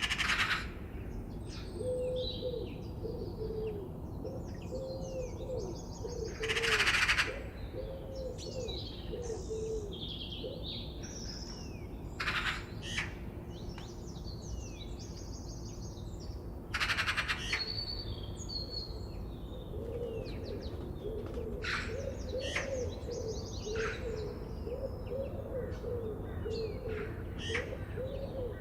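Several birds chirping and singing together. Four loud harsh calls stand out: one at the start, then at about 7, 12 and 17 seconds. A low wavering call repeats through the first third and again through the last third, over a steady low background hiss.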